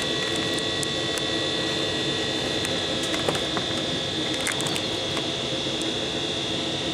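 Steady whooshing background noise with a constant high-pitched hum and a few faint clicks.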